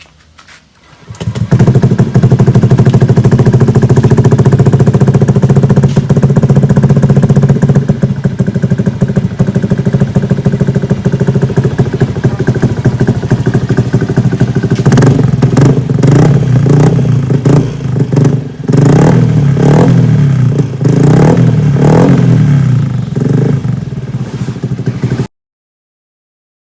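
Honda Scoopy scooter's single-cylinder four-stroke engine, fitted with a DOS Racing aftermarket muffler, starting about a second in and idling steadily. From about halfway it is revved in a series of short throttle blips, and then the sound cuts off abruptly.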